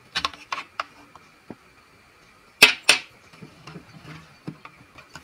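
Miniature plastic toy groceries clicking and knocking as they are handled in a toy fridge and set down on a table, with two sharp clacks in quick succession about halfway through.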